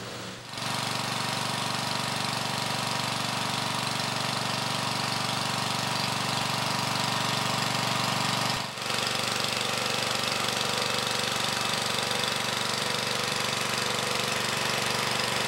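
A motor running steadily: an unbroken drone at a fixed pitch, with a short break about nine seconds in.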